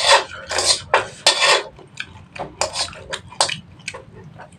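Metal spoon scraping and clinking against a black wok as the last noodles are scooped up, with chewing between the strokes. There is a dense run of scrapes in the first second and a half, then several sharp clinks.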